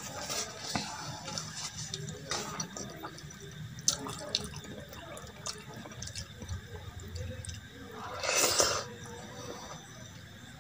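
Wet squelching and small clicks of a bare hand mixing rice into dal on a steel plate. About eight seconds in there is a louder wet noise lasting about a second.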